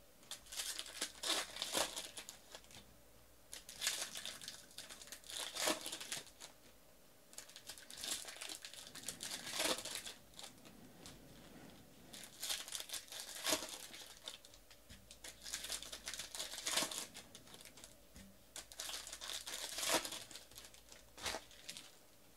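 Baseball card pack wrappers being torn open and crinkled, one pack after another, in repeated bursts of rustling a few seconds apart.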